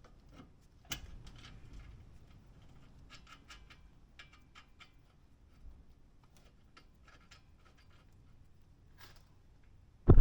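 Scattered light clicks and taps, with a sharper click about a second in and a run of small clicks a few seconds later, then one sudden loud knock right at the end.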